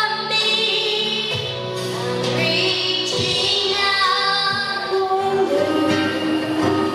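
A high female voice singing long, held notes of a slow song over backing music.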